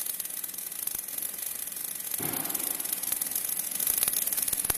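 Welding arc of an automatic overlay surfacing welder, a steady crackling hiss, with a brief louder rough burst about two seconds in.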